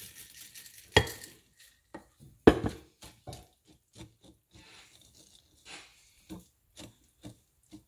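Chocolate chips pouring from a glass jar into cake batter with a short rattle, then two sharp knocks, the loudest sounds. Then a wire whisk clicks against a ceramic mixing bowl about twice a second as the chips are stirred in.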